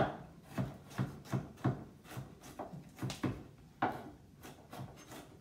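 Kitchen knife chopping ginger finely on a wooden cutting board: a run of sharp knocks of blade on wood, a few strokes a second and unevenly spaced.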